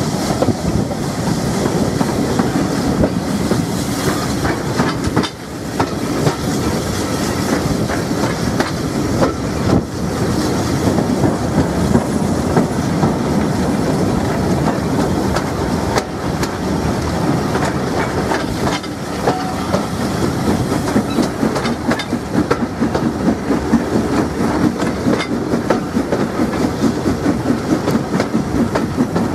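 Steam train hauled by Southern Railway S15 class 4-6-0 locomotive No. 847 running steadily along the line, the locomotive working and the wheels clattering over the rail joints.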